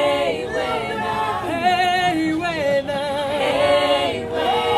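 A group of voices singing together in harmony, holding long notes that waver with vibrato.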